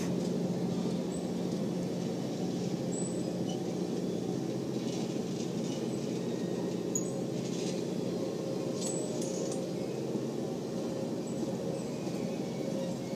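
Steel-wheeled passenger cars of a long train rolling past on the track, a steady rumble of wheels on rail with a few faint, short high ticks.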